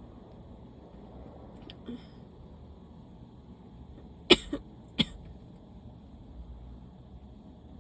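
A person sneezing twice in quick succession, short and sharp, about two-thirds of a second apart. The first is the loudest and has a small catch just after it. These are allergy sneezes.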